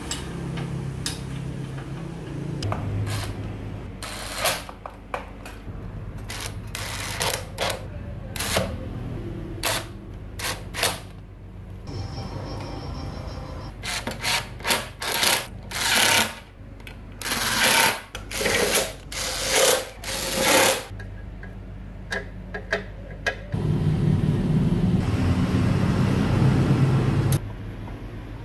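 Cordless impact driver running in a series of short bursts as it drives screws into the generator's sheet-metal bracket, followed near the end by a longer, steadier run of a few seconds.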